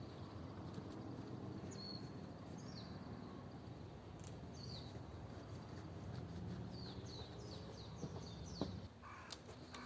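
Faint outdoor ambience with small birds chirping in short, downward-sweeping calls, several in quick succession from about seven seconds in. A light click near the end.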